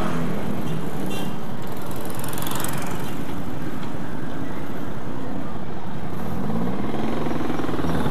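Motorcycle engine running at low speed in slow street traffic, heard from the rider's position with wind and road noise. Near the end the engine note swells and then falls once.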